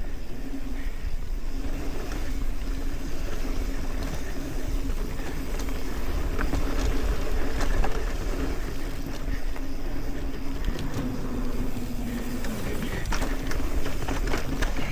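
Mountain bike rolling fast down a dirt trail: wind buffeting the helmet-camera mic over a low tyre rumble, with a steady hum through most of the stretch. Near the end come sharp clicks and rattles as the bike runs over rough ground.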